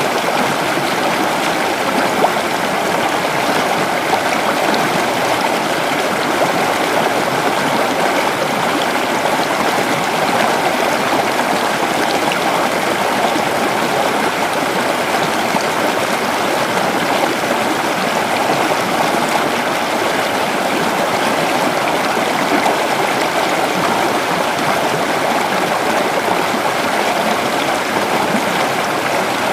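A creek running steadily: an even, unbroken rush of flowing water.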